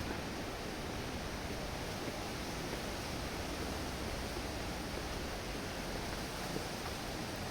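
Strong wind blowing across the microphone: a steady rushing noise with no breaks.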